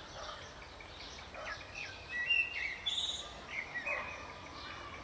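Wild birds chirping and singing: short high whistled notes and chirps, busiest in a cluster about two to four seconds in.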